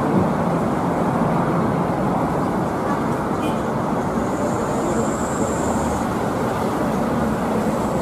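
Coach bus's diesel engine idling steadily, with a faint high whine for a couple of seconds in the middle.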